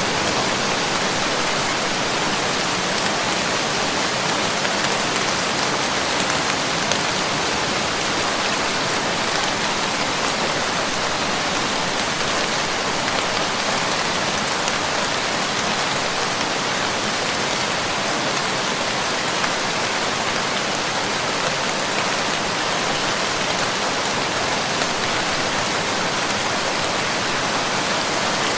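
Heavy rain pouring steadily, a dense even hiss of drops on surfaces, from the rain bands of a cyclone.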